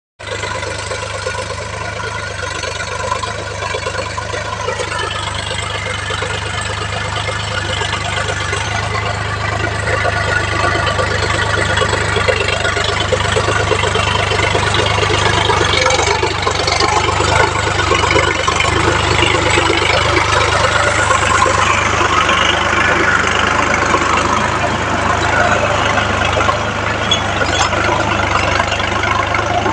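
Sonalika 42 hp tractor's diesel engine running steadily under load while it drives a rotary tiller through the soil, growing louder as the tractor comes close, with the tiller's churning clatter mixed in.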